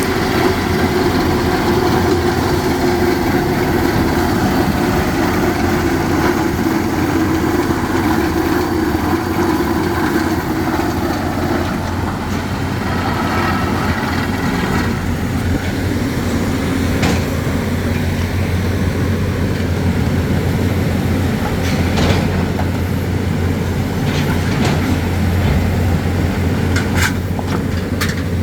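Hydraulic rock drill rig working on bedrock, a loud, continuous machine din with a low hum, and a few sharp knocks in the second half.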